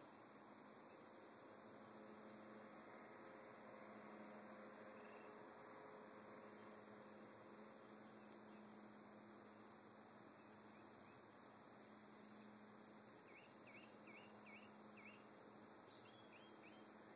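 Near silence with a faint steady hum that fades out about two-thirds of the way in, followed near the end by two short runs of faint, quick chirps.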